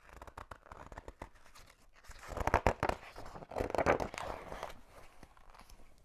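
Pages of a hardcover picture book being handled and turned: papery rustling and crinkling, with two louder swishes in the middle.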